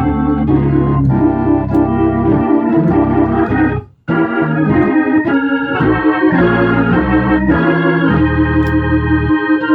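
Hammond organ playing chords over bass notes through a Leslie 22H rotating-speaker cabinet, sound-tested on its freshly refurbished Leslie 147 amplifier. The playing stops briefly about four seconds in, then resumes.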